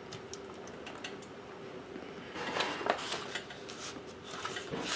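Quiet handling of a clear acrylic stamp block on a sheet of sketch-pad paper: light taps and small clicks, with a soft paper rustle a couple of seconds in and again near the end.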